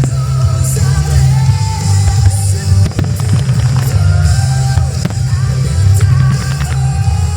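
Loud music with a heavy bass beat and a held melody, with fireworks shells bursting and crackling over it.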